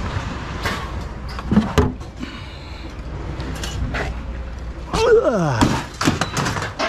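Scrap metal being handled and loaded: scattered knocks and clanks, with a scraping squeal that falls in pitch about five seconds in.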